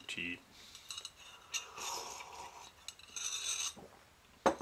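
A mug of tea with a spoon in it being handled and sipped from: two short stretches of slurping and rubbing noise, then a single sharp knock near the end.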